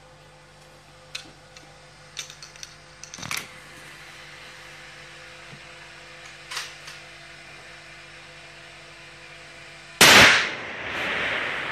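A few faint clicks of rifle handling, then, about ten seconds in, a single loud rifle shot on the F-Class firing line, followed by a rolling echo that dies away over about two seconds.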